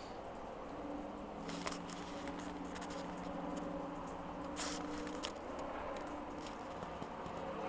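Scattered raindrops pattering and ticking over a steady hiss. A low steady hum comes in about a second in and stops about five seconds in.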